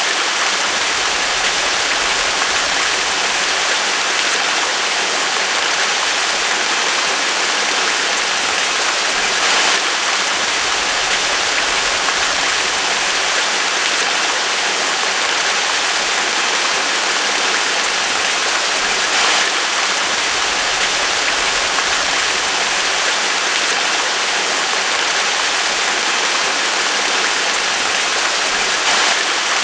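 Waterfall: water falling and rushing in a steady, unbroken hiss, with a brief swell about every ten seconds.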